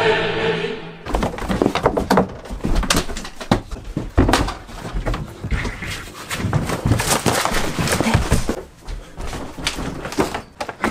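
Sung, chant-like music that cuts off suddenly about a second in. It is followed by an irregular run of knocks, thumps and rustles from a person moving about a house and climbing out through a window.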